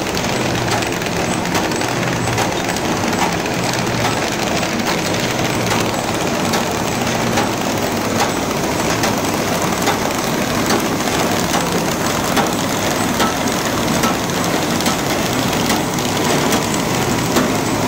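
Paper bag making machine running at speed: a steady mechanical clatter with regular sharp clicks from its moving parts.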